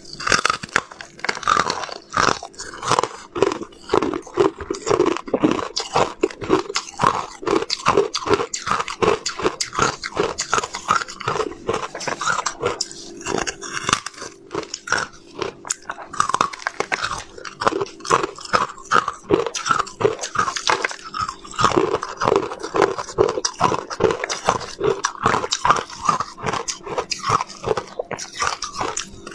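Carbonated white ice being bitten and chewed close to a clip-on microphone: a dense, rapid run of crunching and crackling with many quick crunches a second.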